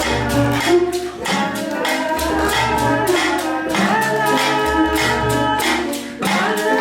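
Music with a steady percussive beat under a pitched melodic part.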